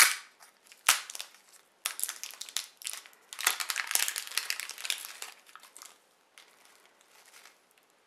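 Plastic shrink-wrap crinkling and tearing as it is peeled off a bath bomb by hand, in irregular bursts, with two sharp snaps at the start and about a second in.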